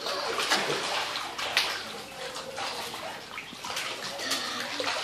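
Water splashing and churning in a shallow inflatable paddling pool as a child kicks and crawls through it, with sharper splashes about half a second and a second and a half in.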